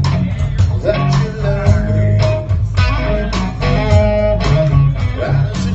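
Live rock band playing: electric guitar notes, some held and some bent, over bass guitar and drums.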